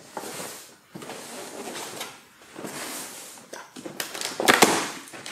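Cardboard advent-calendar door and compartment being handled as a porridge cup is worked out of it: rustling and scraping of cardboard, then a quick cluster of clicks and knocks about four seconds in.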